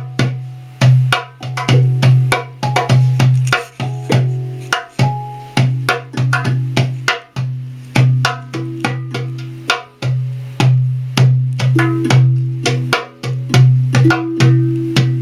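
Hang drum (handpan) played by hand: a quick, rhythmic run of struck, ringing steel notes over a deep low note that sounds again and again.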